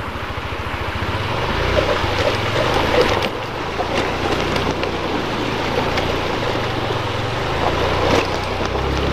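Motorcycle engine running at low revs while the bike crosses a shallow river, its pitch rising and falling a few times, over the steady rush of the river water.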